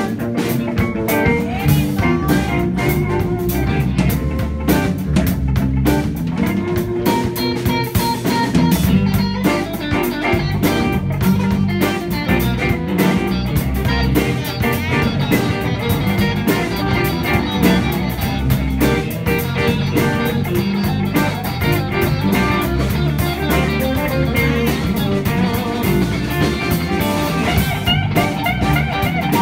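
Band playing a bluesy song, guitar over a steady drum kit beat.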